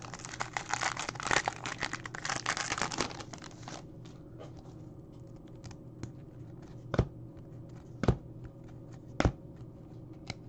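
Foil wrapper of a 2015-16 Upper Deck Series 2 hockey card pack being torn open and crinkled for about four seconds. Then the cards are handled and flipped through, with three sharp taps about a second apart.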